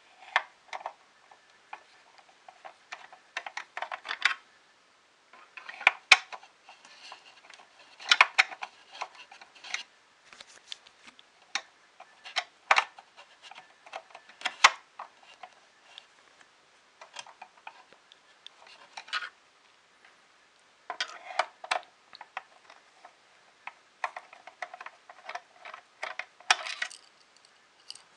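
A screwdriver and small hard parts clicking and clattering in irregular short runs as screws are taken out to remove a 3D printer's panel.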